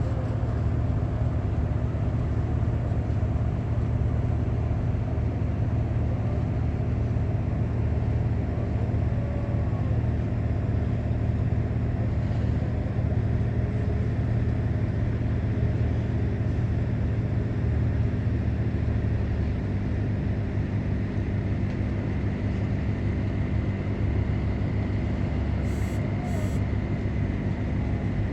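A water boat's engine running steadily with a low, even drone.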